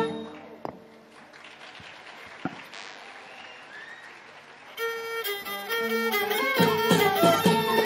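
Traditional folk music with a bowed fiddle breaks off, leaving a few seconds of faint background noise with a couple of small clicks. About five seconds in a bowed string comes back with long held notes, and the full ensemble rejoins soon after.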